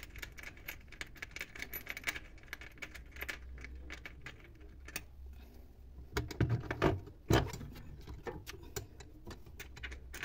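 Small metallic clicks and rattles of a sewing-machine servo motor's mounting screws, washers and bracket being handled and fitted under the table, with a few heavier knocks about six to seven seconds in as the motor body is pushed into place.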